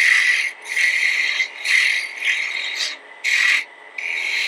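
Quarter-inch bowl gouge cutting a small piece of sycamore spinning on a wood lathe to round it into a sphere: a scraping hiss with each pass, in a run of cuts of about half a second each with brief gaps between.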